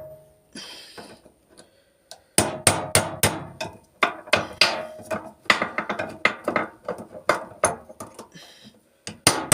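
Hammer striking a punch against a microwave part clamped in a vise, tapping its middle out. After a short pause come repeated sharp strikes, each with a short ring, at about two a second, starting about two seconds in.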